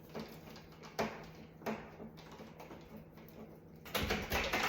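Scattered light clicks of a screwdriver and metal parts as a screw is worked out of a wall-oven door hinge, followed near the end by a louder run of clattering metal knocks.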